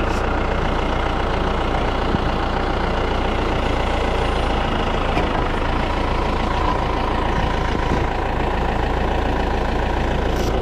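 Case IH tractor's diesel engine running steadily.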